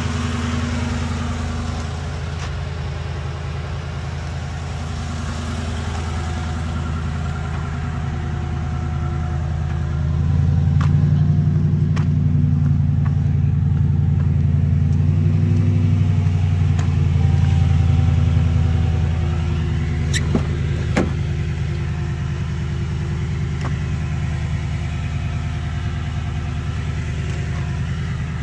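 Truck engine running steadily, getting louder about a third of the way in and easing back a little past the middle, with a few sharp clicks.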